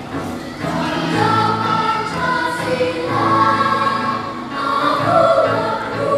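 Children's choir singing, holding long notes; the voices come in louder about half a second in.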